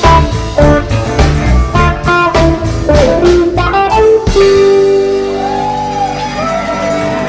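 Live rock band playing, an electric guitar lead over drums and bass. About four seconds in the drum hits stop and the guitar holds long notes that bend in pitch.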